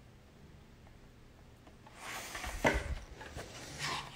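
Large photobook pages being turned by hand: after a quiet start, paper rustling begins about two seconds in, with one louder thud shortly after.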